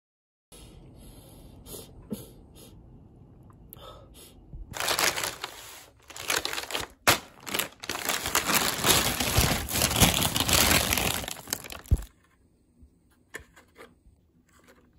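Black plastic mailer bag crinkling and rustling loudly as it is handled and opened, dense with sharp crackles, from about five seconds in until it stops abruptly about twelve seconds in. Quieter handling rustles and clicks come before it, and a few faint taps after.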